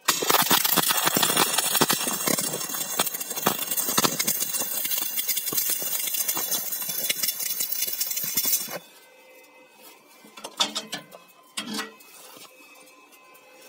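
Stick (electrode) welding arc crackling and sputtering steadily as a bead is run along a steel joint, stopping sharply about nine seconds in when the arc is broken. A few faint knocks follow near the end.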